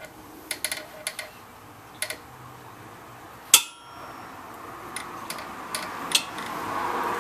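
Metal hand tools and parts clinking and clanking as they are handled, with one loud ringing metal clank about three and a half seconds in.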